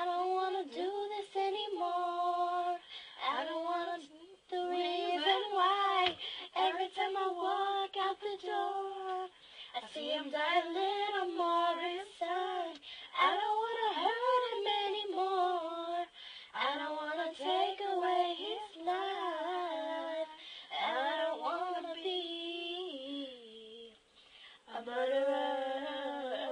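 Two teenage girls singing together unaccompanied, in sustained phrases with short breaks for breath.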